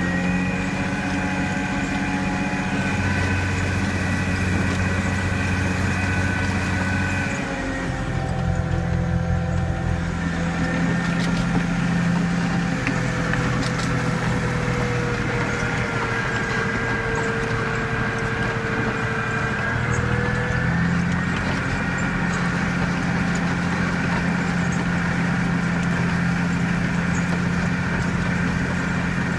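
Volvo G930 motor grader's diesel engine running steadily under a steady whine that drifts a little in pitch; the engine note changes briefly about eight seconds in.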